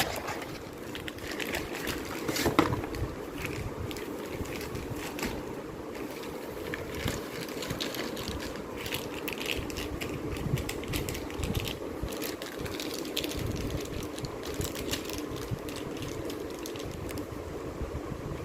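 Light clicks and rustles of a box and packaging being handled, with a sharper knock about two and a half seconds in, over a steady low hum.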